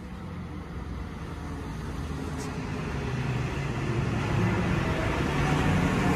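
DSB IC4 (class MG) diesel multiple unit approaching along the platform, its engine and wheel noise growing steadily louder as it nears.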